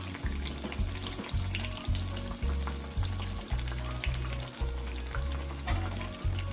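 Battered eggplant slices (beguni) deep-frying in hot oil in a kadai: a steady crackling sizzle. Under it runs background music with a bass beat about twice a second.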